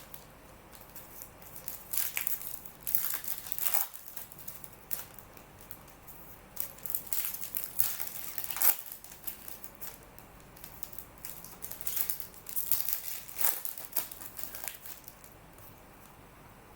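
Plastic packaging of trading-card boxes or packs crinkling and tearing in irregular short rustles, as the sealed product is handled and opened.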